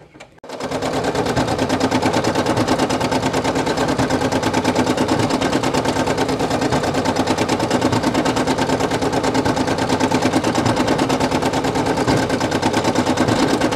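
Brother PE800 embroidery machine stitching out a patch: the needle's rapid, even strokes over a steady motor hum. It starts abruptly about half a second in and runs on without change.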